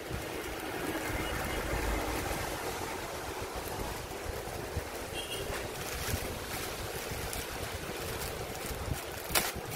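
Clear plastic wrapping rustling and crinkling as a plastic-wrapped car-stereo screen and its fascia panel are handled among foam packing sheets, with a couple of sharp clicks near the end.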